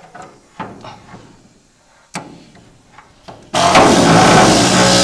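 A few scattered sharp knocks and clanks from hand-tool work on the car's sheet metal, then loud rock music with electric guitar starts abruptly about three and a half seconds in.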